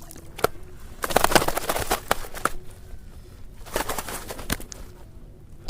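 Water splashing in two rough bursts, about a second in and again near four seconds, with a few sharp clicks between: a hooked fish thrashing at the surface as it is pulled in.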